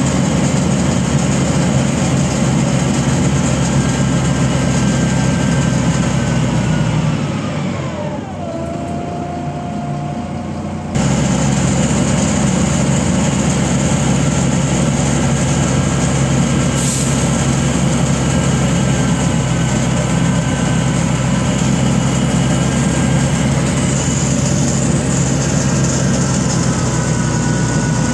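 Running noise inside a MAZ-105 city bus on the move: a steady low engine hum with a whine that falls in pitch between about four and eight seconds in as the bus slows. The noise drops for a few seconds, then comes back suddenly about eleven seconds in, with a short hiss near seventeen seconds.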